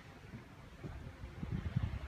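Wind buffeting the microphone in low, irregular gusts that grow stronger in the second half.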